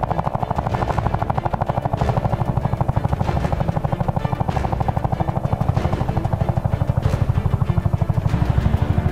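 Helicopter rotor chopping steadily at about ten beats a second, with music playing over it.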